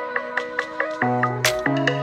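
Electronic background music: a steady beat of short mallet-like notes, about six a second, over held bass notes.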